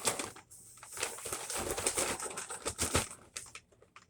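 Plastic snack bag crinkling and crackling as it is handled close to the microphone, a fast run of small crackles that dies away near the end.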